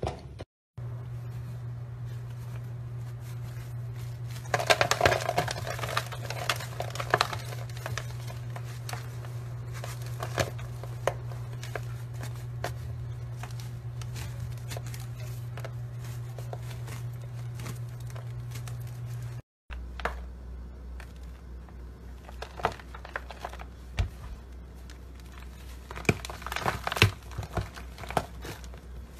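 Hands breaking and crumbling dry, chalky clumps: crackling and dry crunching with scattered sharp snaps, over a steady low hum. The sound cuts out briefly near the start and again about two-thirds through.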